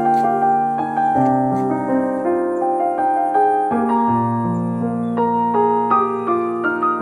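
Background music: a soft piano playing slow sustained chords with a melody on top.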